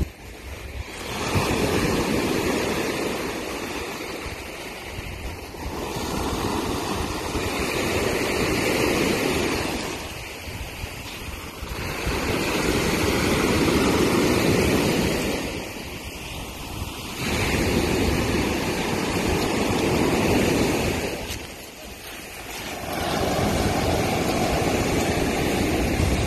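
Surf breaking and washing up a sand beach, rising and falling in surges every five or six seconds.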